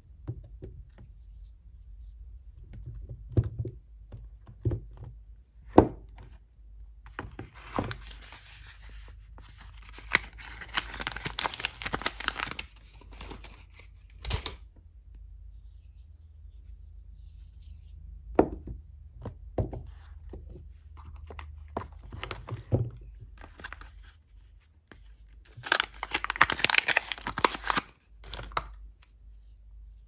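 Soap bar wrappers being torn and crinkled open by hand, in two stretches of a few seconds each, the second near the end. Between them come scattered short knocks and taps as the bars are handled and set down.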